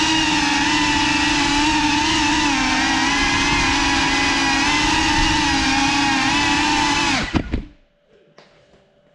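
Whine of the iFlight Cinelog 35 cinewhoop's four brushless motors and ducted propellers, heard close from the onboard camera, steady and wavering slightly in pitch with the throttle. About seven seconds in it cuts off abruptly with a few knocks as the drone comes down and the motors stop.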